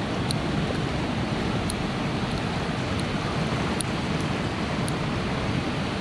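Fast river rapids rushing steadily. A few faint, sharp ticks come through, from a pick working the pins of a brass Paclock 150 padlock.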